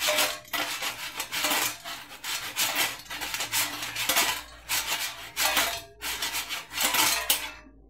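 Half-cooked fries tossed in an air fryer basket held by a clip-on handle: a series of rattling, scraping strokes, roughly one a second.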